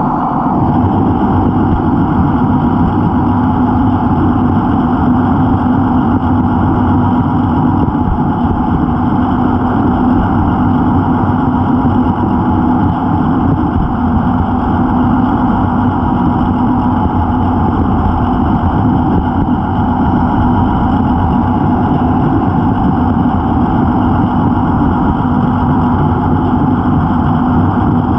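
Gauge 0 model locomotive running at a steady speed along the track, heard from on board: an even, unbroken running hum with no change in pitch or speed.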